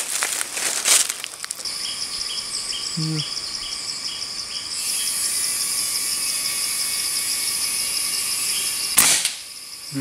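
Forest insects trilling steadily with fast even pulsing, joined for a few seconds by a run of short even chirps and later by a high hiss. At the start there is a short rustle and crackle of dry leaves, and about 9 s in there is a single sharp click.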